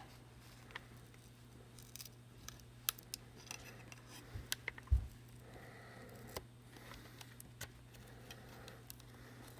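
Small metal tools, such as flat tweezers, clicking and tapping irregularly against the parts inside an iPhone 7 as pieces are pried loose, over a steady low hum. A dull thump about five seconds in is the loudest sound.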